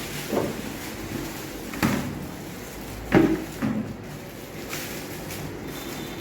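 A few short plastic knocks and thuds of something being handled, opened and shut, over a steady background hum; the loudest knock comes about three seconds in.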